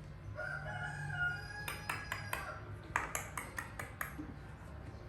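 A drawn-out pitched call of about a second, then a dozen sharp clicks or taps in two quick runs.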